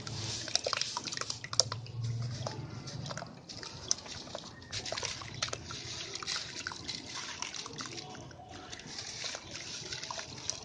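Lumps of white concrete sand being crushed and crumbled, a dense run of crunchy crackles with a few sharper snaps.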